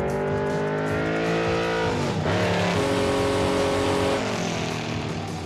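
Engine of Big Red, a 2,000-horsepower 1969 Camaro race car, accelerating hard. Its pitch climbs, drops sharply about two seconds in as it shifts gear, climbs again, then falls away near the end.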